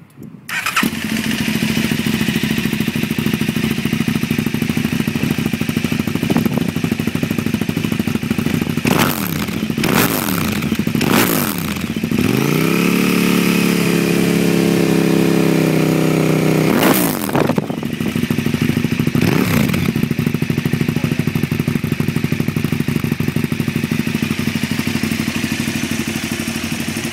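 2007 KTM Superduke 990's V-twin engine running through Fuel stainless oval mini end cans with baffles in and a de-cat Y-piece. It starts about half a second in and idles. About nine seconds in it is blipped sharply three times, then held at higher revs for about five seconds, blipped once more and left to idle.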